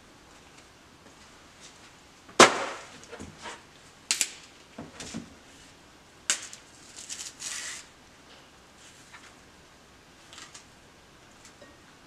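Kitchen handling noises while bananas are peeled and mashed: a few sharp knocks, the loudest about two and a half seconds in, with softer rustling and scraping between them.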